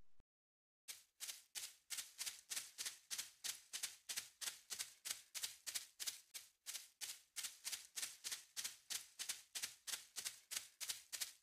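A small dog's paws pattering on a hard floor as it runs: quick, light clicking taps, about four a second, starting about a second in.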